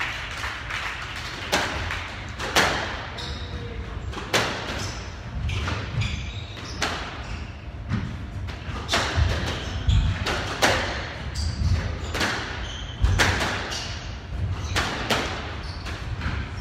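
Squash rally: the ball cracking off rackets and the walls at an irregular pace, about one to two hits a second, with players' feet thudding on the wooden court floor.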